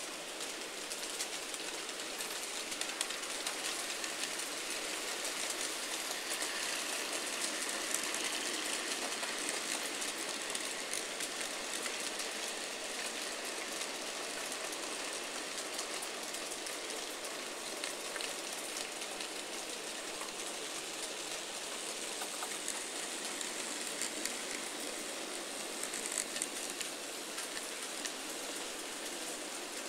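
N gauge model trains running on the layout's track: a steady rolling hiss with fine, faint ticking from the small wheels on the rails.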